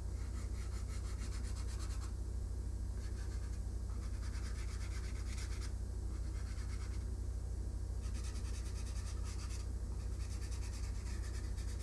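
Water-based marker scrubbing on a foam tray plate in fast, short back-and-forth strokes, coming and going in stretches. A steady low electrical hum runs underneath.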